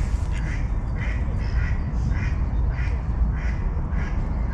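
Mallard ducks quacking in a steady series, a short quack about every half second, over a low rumble.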